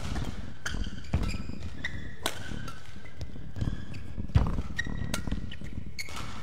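Badminton rally on an indoor court: sharp racket hits on the shuttlecock every second or so, with short shoe squeaks and footfalls on the court floor.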